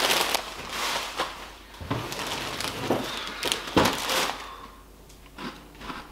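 Plastic crisp packets and shopping wrappers rustling and crinkling as groceries are unpacked, with a few dull knocks of items set down on the counter, the rustling easing off about four seconds in.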